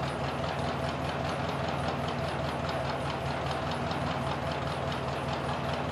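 1953 Ford Golden Jubilee tractor's four-cylinder engine idling steadily, with an even, regular beat.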